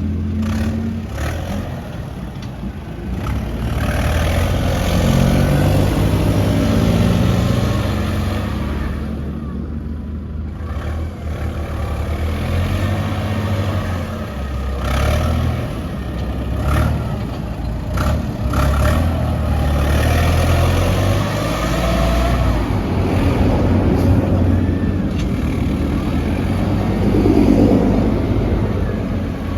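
Heavy diesel engines of an excavator and dump trucks running, rising and falling in revs, with a few sharp knocks and clatter about halfway through.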